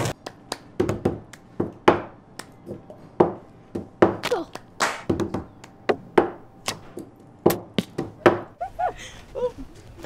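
A quick run of short thunks and taps, about two to three a second, from hands-on camp activity: knocks and impacts cut together one after another.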